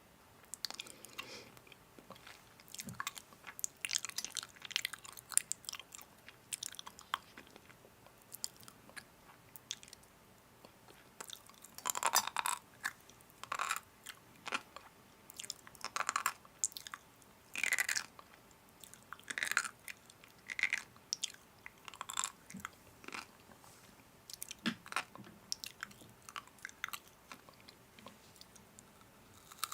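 Close-miked crunching and chewing of crisp snack food, with short irregular crunches every second or two.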